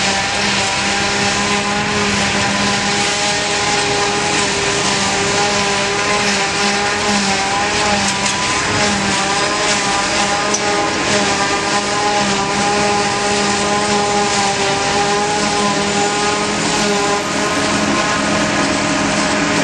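Heavy silage-harvesting machinery running steadily: a forage harvester and tractor engines droning under load, with a steady whine over a constant rushing hiss.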